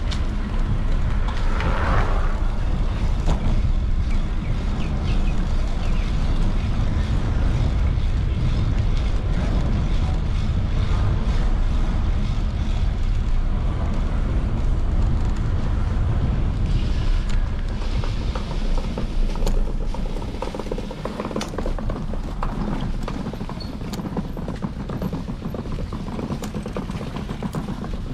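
Bicycle riding along a beach boardwalk: a steady low wind rumble on the microphone and the rolling noise of the ride, easing a little in the second half, with scattered sharp clicks.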